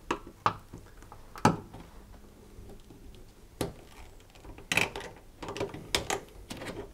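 Flat-headed screwdriver prying the coiled-spring outer retaining band off an Indesit washing machine's rubber door seal: irregular metallic clicks and scrapes, a few spread apart at first and more of them close together in the second half.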